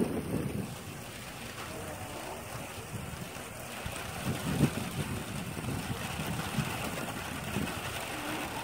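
Wind rumbling and buffeting the microphone over a steady hiss, with a brief louder bump about four and a half seconds in.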